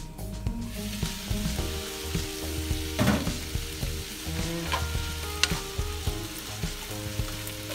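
Chopped onion, carrot and celery sizzling as they sauté in butter in a skillet, the sizzle growing louder about a second in. A plastic spoon stirs the vegetables, with a few knocks and scrapes against the pan.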